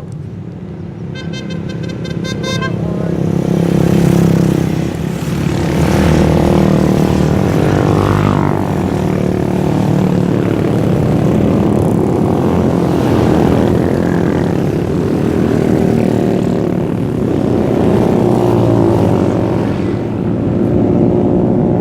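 Motorcycle engine running, growing louder over the first few seconds and then holding steady.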